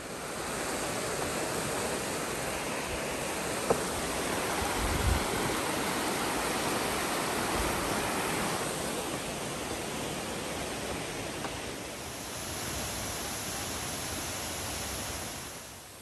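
Steady rush of flowing water from a rocky stream, turning hissier about twelve seconds in. A short click comes nearly four seconds in, with a low thump a second later.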